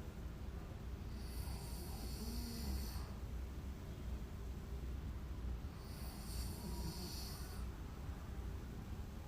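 A sleeping woman snoring, with two long breaths that have a hissing edge: one starting just over a second in, the other about six seconds in.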